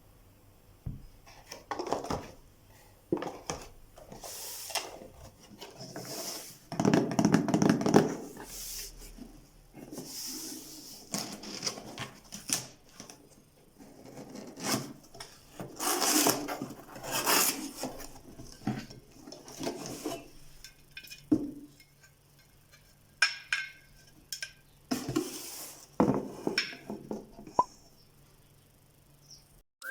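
Kitchen tools and their packaging being handled: irregular taps, knocks and rubbing or rustling, with a few short ringing tones about two-thirds of the way in.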